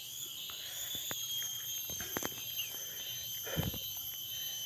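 Insects droning steadily in a high, thin chirr, with scattered light clicks and one soft knock about three and a half seconds in.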